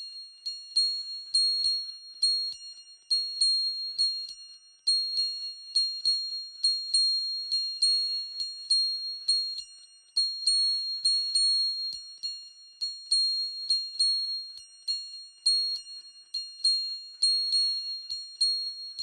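Ultra high-pitched tinnitus-relief music of bell-like pings, struck in quick, uneven succession a few times a second, each ringing briefly. Every note is very high, with nothing in the low range.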